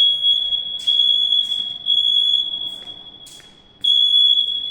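Fire alarm hooter sounding a shrill, steady high-pitched tone during an alarm system test, its loudness swelling and fading in waves, dipping low about three seconds in and coming back loud near the end.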